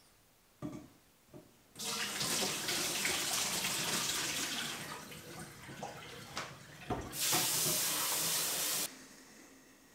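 Water from a kitchen tap running into a stainless steel sink, splashing in and around a steel mixing bowl as it is rinsed under the stream. A few knocks sound, the first two before the water starts. The water stops suddenly a second before the end.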